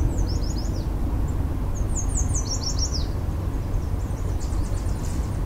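A small songbird singing in the shoreline trees: two quick phrases of high, rapidly falling chirps, and a fainter phrase near the end. A steady low rumble runs underneath and is the loudest part.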